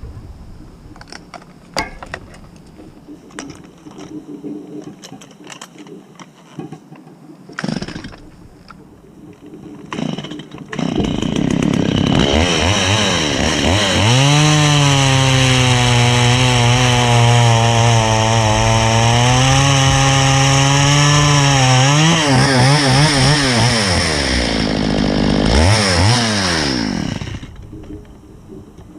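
A few scattered knocks, then a two-stroke chainsaw revs up about eleven seconds in and runs at high speed for about ten seconds, drops in pitch, revs up again and cuts off near the end.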